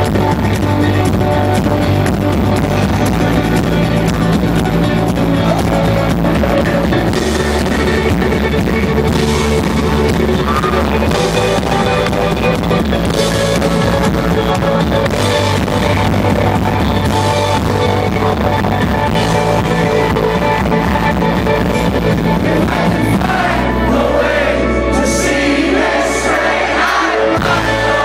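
Live rock band playing loud, with amplified guitars, bass and drums under singing. About 23 seconds in the low end thins out and the sung lines come forward.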